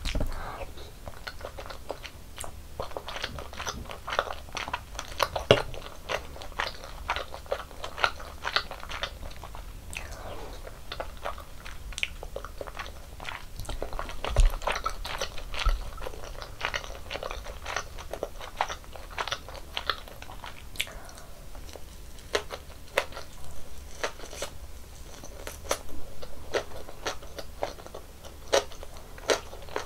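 Close-miked eating sounds of someone chewing and biting tteokbokki and mini gimbap: a steady stream of small crunches and wet mouth clicks, with a low thump right at the start and another about halfway through.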